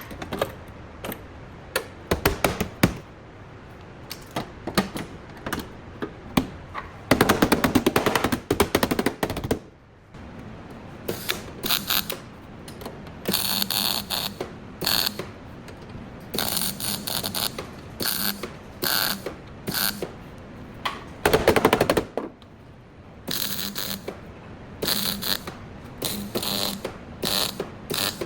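Ratchet wrench clicking in repeated short bursts as fasteners are turned, with two longer, louder runs of rapid rattling.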